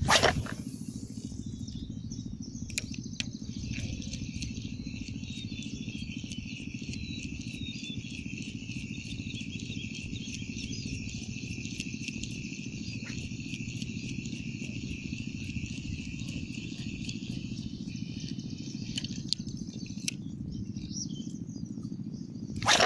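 Insects buzzing in a steady high drone that fades out a few seconds before the end, over a steady low rumble. A short loud rush comes at the very start and again near the end.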